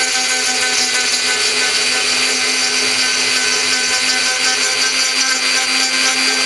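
Mini CNC router spindle running at a steady high speed, with a constant whine over a hiss, as it mills out pockets in wood.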